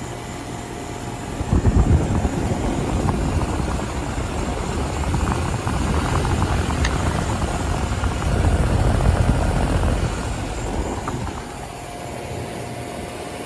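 2007 Goodman central air conditioner's outdoor condensing unit running: its reciprocating compressor and condenser fan make a steady hum. An uneven low rumble swells from about a second and a half in and eases off near the end.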